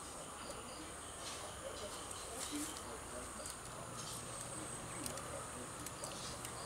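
Steady high-pitched insect chirring, with a few short crisp clicks and rustles scattered through it as leaves and twigs are trimmed off a ficus bonsai.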